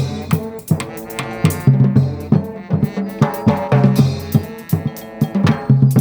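Street brass band of trombones playing a tune over a steady beat on drum kit and percussion, with held brass notes and sharp drum hits throughout.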